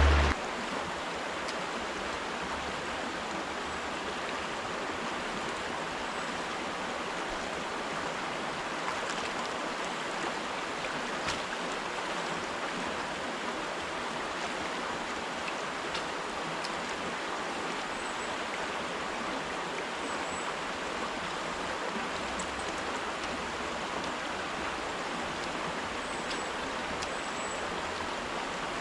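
Steady rushing of river water over rocks, with a few faint high chirps in the second half.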